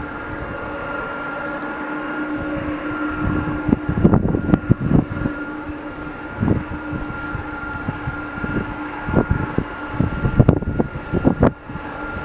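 Airbus A300-600 freighter's Pratt & Whitney PW4158 turbofans at taxi power: a steady engine whine with two held tones over a low rumble. From about three and a half seconds in, irregular gusts of wind buffet the microphone and are the loudest thing heard.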